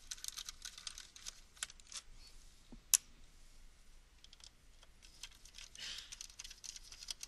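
Light clicks and ticks of a small Phillips screwdriver and fingertips working the tiny screws out of a Cisco DFC3 daughter card, with one sharp click about three seconds in and a brief rustle near six seconds.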